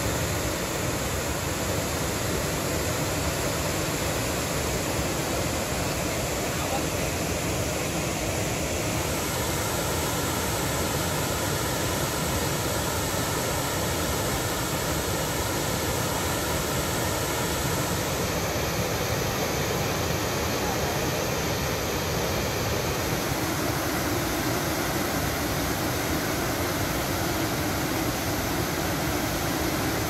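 A wide waterfall in flood with muddy water pouring over a long rock ledge, making a steady, unbroken rush like the sound of sea waves.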